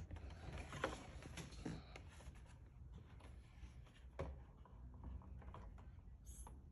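Faint scattered taps and rustling of small objects being handled, a few light clicks spread through an otherwise quiet room.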